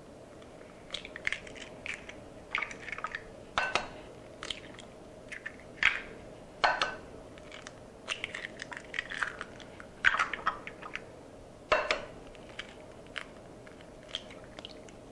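Eggs cracked one after another against the rim of a glass mixing bowl, with the shells broken open and pulled apart: a string of sharp taps and crackles with short pauses between them.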